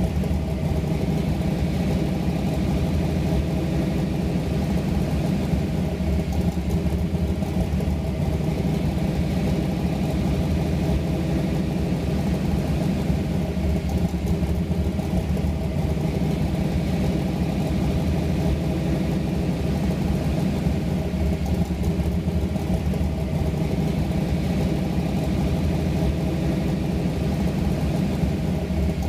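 Chevrolet LS3 6.2-litre V8 in a 1956 Bel Air idling steadily.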